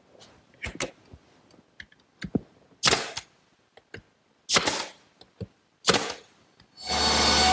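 Pneumatic nail gun driving nails through 1/2-inch plywood into a wooden frame: three sharp shots about a second and a half apart, with lighter clicks and taps between them. Near the end a steady machine noise starts.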